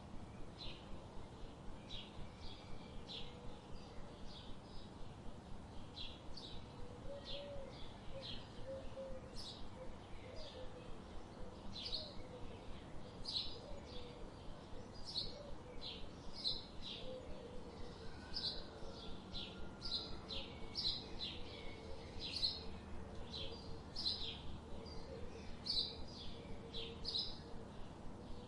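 Goslings peeping: a continuous stream of short, high chirps, several each second, as the brood moves along together.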